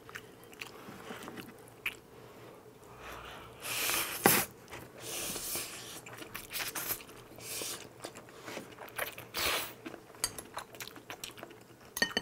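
Two people eating Chapagetti black-bean-sauce instant noodles at close range: several loud slurps of noodles and wet chewing, with short clicks and smacks in between.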